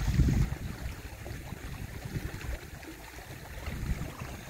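River water flowing by, with irregular low rumbling on the microphone that is loudest at the very start.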